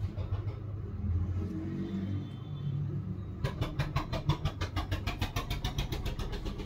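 An engine running with a steady low rumble; about halfway through, a quick, even chugging of roughly eight beats a second comes in for about three seconds.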